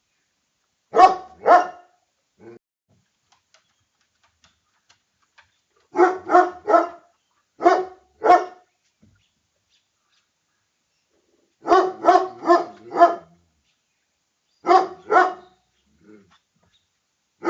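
A dog barking in short bursts of two to five barks, with pauses of a few seconds between bursts.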